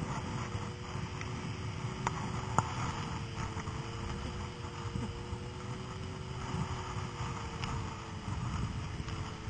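Snowmobile engine running steadily at a near-constant pitch over a low rumble, with two sharp clicks about half a second apart around two seconds in.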